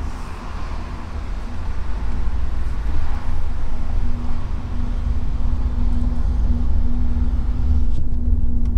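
In-cabin sound of a Honda CR-V Turbo pulling away and driving: a low engine and road rumble, with a steady hum joining about four seconds in.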